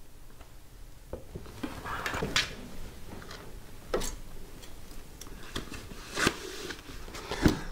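Handling noise from an Apple G4 Cube's clear acrylic case as it is lifted, tilted and set down upside down: scattered knocks and clicks against hands and the desk. The sharpest knocks come in the second half.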